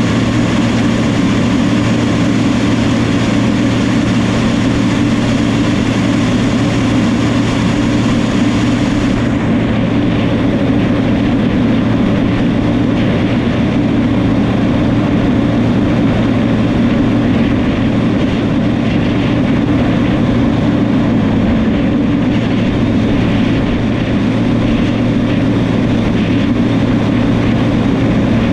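New Holland crawler bulldozer's diesel engine running steadily under load, with a steady low drone. A high hiss fades out about nine seconds in.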